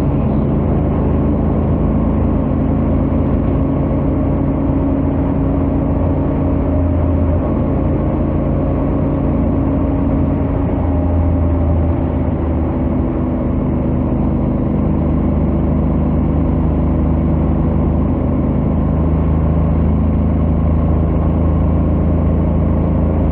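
Honda X-ADV 750's parallel-twin engine and stock exhaust running steadily at highway cruising speed, the engine note holding a near-constant pitch.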